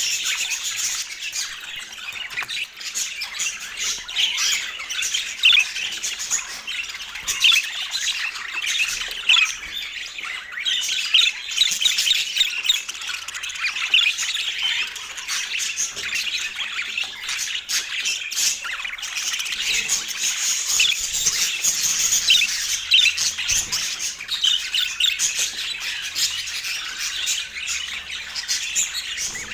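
Budgerigar chatter: a continuous stream of quick chirps, squawks and warbling trills.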